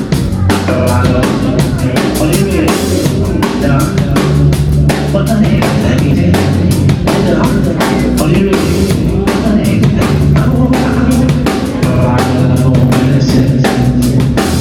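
Live band playing an instrumental passage: a drum kit keeps a busy, steady beat of kick, snare and cymbals over held bass notes, with no vocals.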